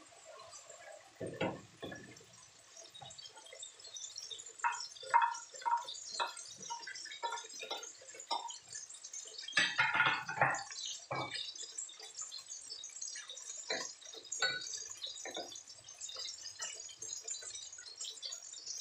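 Hot oil sizzling and crackling in a wok as food fries, with clicks and scrapes of a cooking utensil against the pan and plate; a louder spell of clatter and spattering about ten seconds in.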